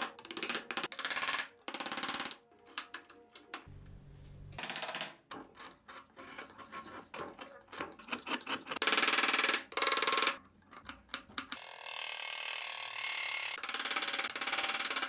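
Steel hand chisel paring shavings off a carved wooden block: quick clicks and taps of the blade on the wood between rasping cutting strokes, the longest stroke running a few seconds near the end.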